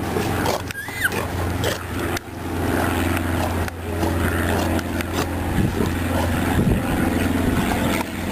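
South American sea lions growling and barking in low, rough calls, over a steady low hum.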